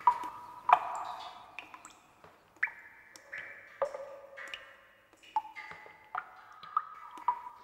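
Water drops falling from a tap into a full water jar: about a dozen single plinks at uneven intervals, each a short ringing note at a different pitch.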